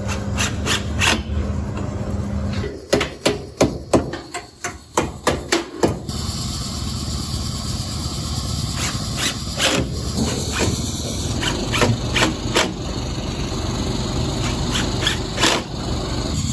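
Repeated sharp knocks and taps over a steady background noise, with a quick run of about ten loud strikes from about three to six seconds in.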